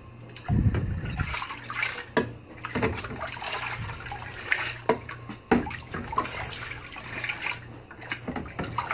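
Water sloshing and splashing irregularly in a plastic tray as a measuring cup is swished through it by hand, stirring machining coolant concentrate into the water.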